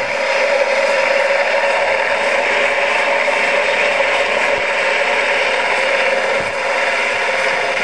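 The motor and gearing driving a scale-model rotorcraft's spinning rotor, running with a steady mechanical whir.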